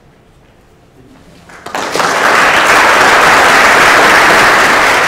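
Audience applauding: after a quiet start, the clapping breaks out about a second and a half in, swells quickly and then holds loud and steady.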